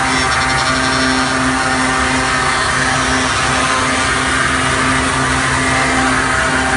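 Three-axis CNC wood lathe running, its vertical spindle cutter milling a curved profile into a wooden workpiece: a steady machine hum with the continuous noise of the cutter in the wood.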